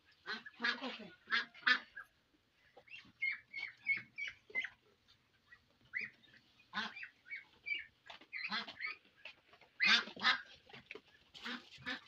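Domestic waterfowl calling, several birds giving a run of short, repeated harsh calls; the loudest cluster comes about ten seconds in.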